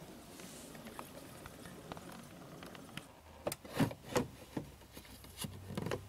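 A few short plastic clicks and knocks about halfway through, from opening the side cover of a De'Longhi DES16EW dehumidifier to get at its water tank. Before them there is only faint room noise.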